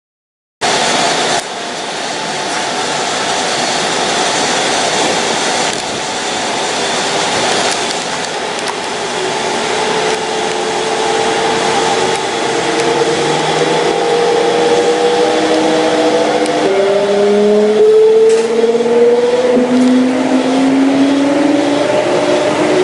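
Kintetsu 1259 series electric train with Hitachi GTO-VVVF inverter control, running with its traction motors whining in several stacked tones that climb steadily in pitch as it gathers speed, over steady running noise. Around two-thirds of the way through the tones jump to a new, lower set that climbs again, a shift in the inverter's switching pattern as speed builds.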